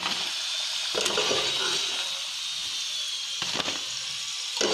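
Diamond-cut dough pieces sizzling in hot oil, a steady high hiss, with three knocks of a utensil against the pan as the fried pieces are scooped out.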